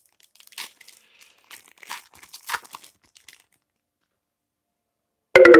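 Panini Prizm trading-card pack wrapper being torn open and crinkled: a string of short, faint rustles and rips over the first three seconds or so. A brief loud vocal sound comes near the end.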